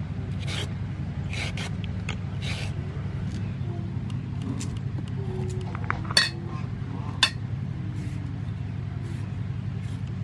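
Hand julienne peeler scraping strips off a raw carrot, a few short strokes about a second apart, then two sharp clinks a second apart past the middle, over a steady low hum.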